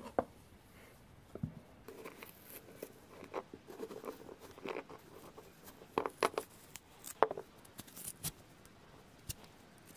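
Kitchen knife cutting into a tomato on a plastic cutting board: scattered soft clicks and scrapes, with a few sharper knocks around six and seven seconds in.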